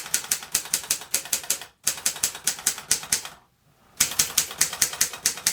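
Moskva-4 portable manual typewriter being typed on: quick runs of typebar strikes, about six a second. There is a brief break just under two seconds in and a pause of about half a second past the middle.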